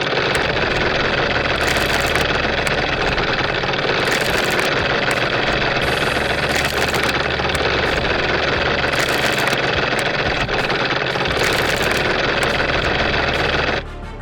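An engine-driven machine running steadily and loudly, cutting off abruptly near the end.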